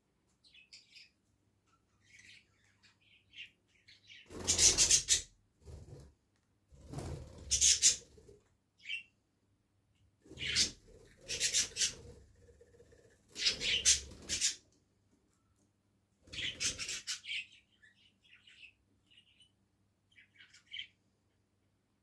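A budgerigar bathing in a shallow dish of water, fluttering its wings to splash in five bouts of about a second each, with soft short chirps in between.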